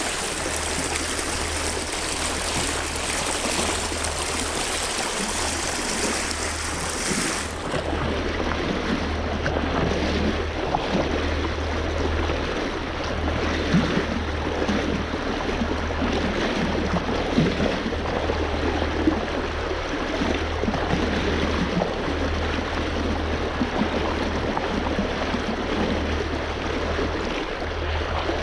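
Steady rushing water, with a low rumble that comes and goes beneath it; the sound changes abruptly about seven seconds in, as at a cut.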